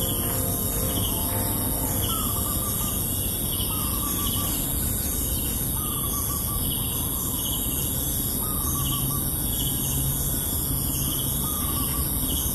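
Morning countryside ambience. A bird repeats a short call about every two seconds, other birds chirp higher and faster, and insects keep up a steady high buzz.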